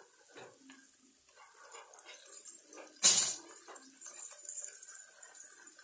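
One sharp metallic clink of steel kitchenware about three seconds in, over the faint sizzle of onions frying in a steel pressure cooker.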